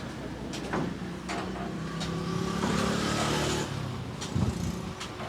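Road traffic: a motor vehicle's engine running steadily, growing louder about two seconds in as it passes. A few sharp clicks come about a second in.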